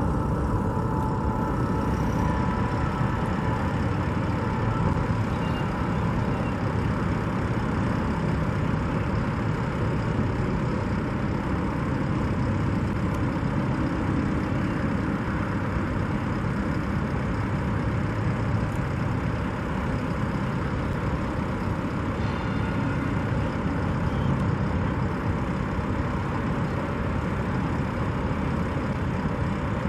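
Steady drone of vehicle and heavy engine noise, with no distinct impacts or changes.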